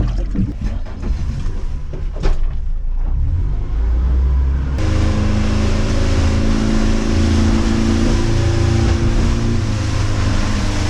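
Boat's outboard engine running under way. About five seconds in, a loud rush of wind and water noise abruptly joins a steady engine tone as the boat runs faster.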